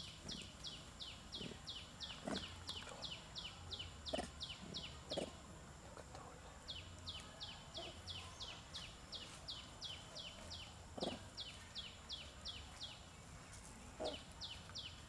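A bird's high chirping: a fast, even run of short descending notes, about five a second, that breaks off briefly about six seconds in and again shortly before the end.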